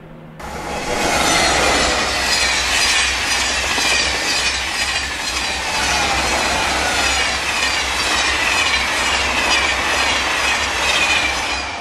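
Double-deck TGV Duplex high-speed train passing close by at speed: a loud steady rush with a regular beat, starting abruptly about half a second in and fading near the end.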